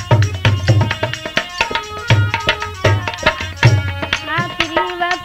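Instrumental interlude of a Hindi devotional bhajan: a hand drum plays a steady rhythm with deep bass strokes and quick sharp strikes, under a melody of short notes.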